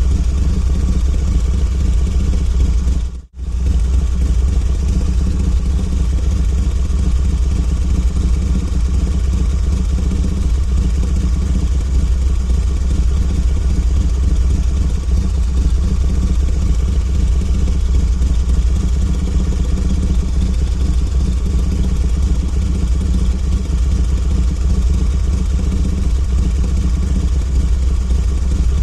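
Harley-Davidson V-twin engine idling steadily with a deep low rumble; the sound cuts out for a split second about three seconds in.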